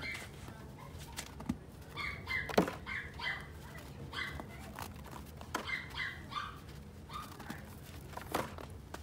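Snow squeaking and crunching as handfuls are scooped and packed into snowballs, in short repeated squeaks, with a few sharp thuds; one about eight seconds in comes as snow drops into a plastic tub.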